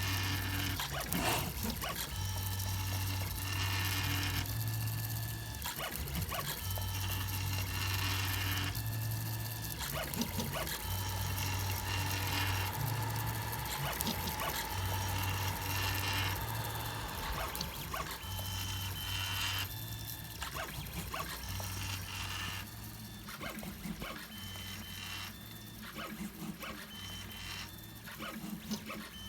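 3D printer's stepper motors whining as the print head and bed move during printing. The whine comes in short runs of about a second, stopping and starting and changing pitch with each move.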